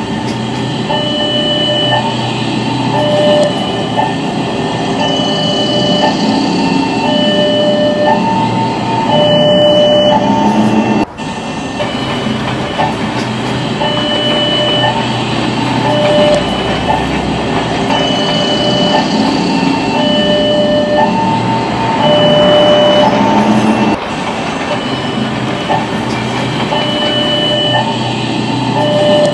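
Electronic railroad crossing alarm sounding alternating high and low tones, about a note a second, over the rumble of a passing train. The sound breaks off abruptly for an instant about eleven seconds in.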